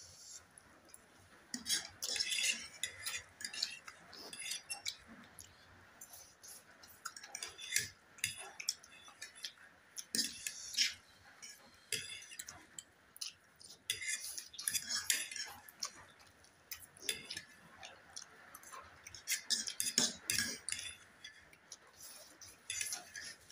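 Metal forks clinking and scraping on plates as noodles are twirled and lifted, mixed with short bursts of slurping and chewing as mouthfuls of spicy instant noodles are eaten, in an irregular run of clicks and quick hisses.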